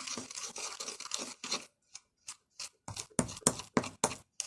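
A utensil scraping and stirring in a bowl, working ingredients into a thick paste by hand: a dense run of scraping for about a second and a half, then separate strokes about three to four a second.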